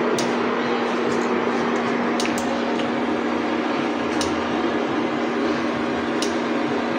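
Induction cooktop running on its keep-warm setting: a steady fan-like hum with a constant low drone, broken by a few irregular sharp clicks.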